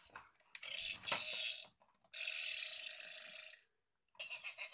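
Electronic red toy dinosaur making burp-like sound effects through its small speaker: two drawn-out burps, then a short choppy sound near the end.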